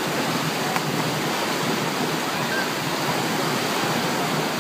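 Wave pool's artificial waves breaking and churning: a steady rush of water with faint distant voices of swimmers and a single brief tick just under a second in.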